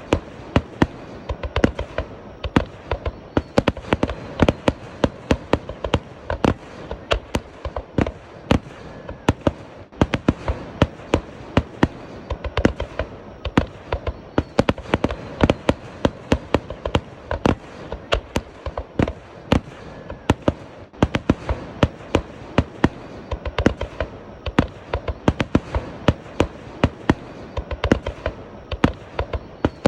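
Fireworks going off: a rapid, unbroken string of sharp bangs and cracks, several a second, over a steady background noise.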